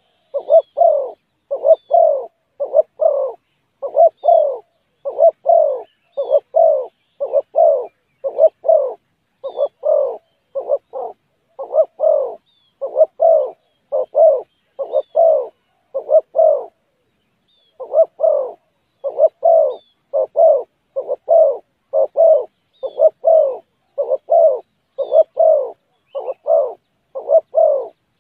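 Spotted dove cooing over and over in a fast, regular run of short hoarse coo notes, about two a second, with one brief break a little past the middle. This is the calling used to lure rival doves. Faint high chirps of small birds come and go behind it.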